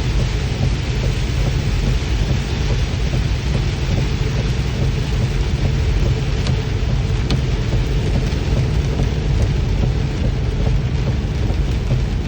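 Steady heavy rain falling, with faint scattered drop ticks over a constant deep rumble.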